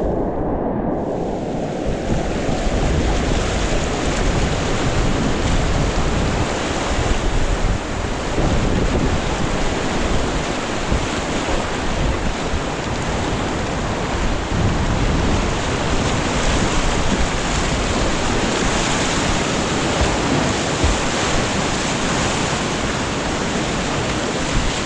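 Whitewater rapids rushing steadily around a kayak. The sound is muffled for the first second or so, then opens up.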